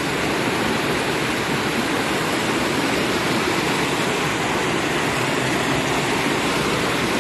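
Water rushing steadily through a channel between concrete blocks, a constant noise like a small waterfall.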